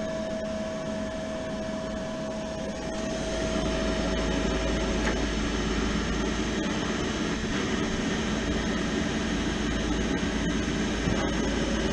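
Peerless Pure Fire gas boiler's inducer motor running steadily during a second trial for ignition after an ignition-error lockout. A thin steady tone in the hum stops about five seconds in, and a deeper rumble comes in about three seconds in and holds.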